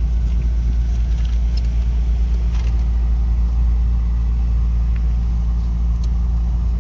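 Car running, heard from inside the cabin: a steady, loud low drone of engine and road rumble.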